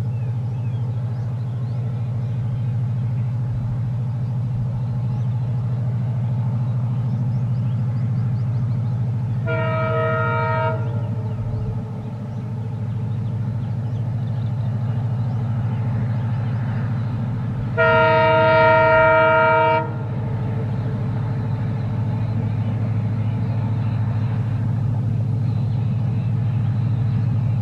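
WDP4D diesel-electric locomotive's EMD two-stroke engine running steadily as it hauls a passenger train, sounding its air horn twice: a short blast about ten seconds in, then a longer, louder blast a few seconds later.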